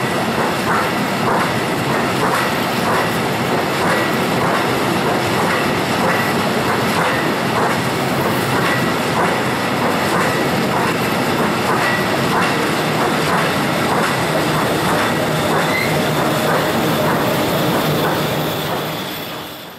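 Empty flat freight wagons rolling past, their wheels clacking over rail joints in a steady rhythm of roughly two to three clacks a second, with a faint high squeal coming and going. The sound fades away near the end as the last wagon passes.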